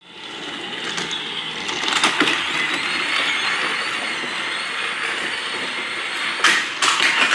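Battery-powered Trackmaster toy train motor running on plastic track, a steady whir with a faint high tone. A few sharp clicks come near the end.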